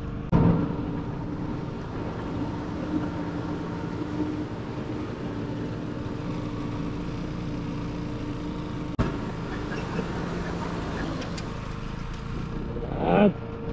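KTM Duke motorcycle engine running at a steady speed while riding, with a single sharp knock about nine seconds in and a brief voice near the end.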